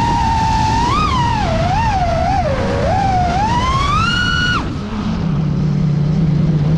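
FPV quadcopter's brushless motors and propellers whining, the pitch rising and falling with the throttle over a rush of air. About four and a half seconds in the whine cuts to a low steady hum as the throttle is dropped, then sweeps sharply up again near the end.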